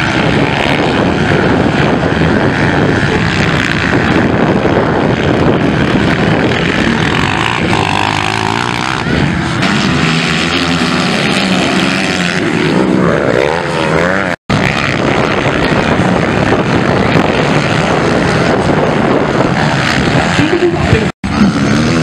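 Several motocross dirt bikes racing, their engines revving up and down over and over as they pass through corners and jumps. The sound cuts out for an instant twice.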